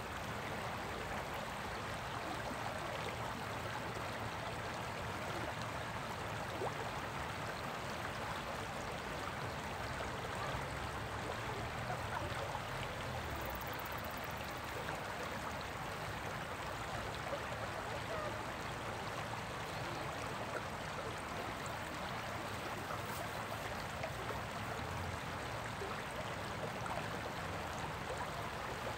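Water of a shallow river riffle running over rocks: a steady, even rushing sound with no breaks.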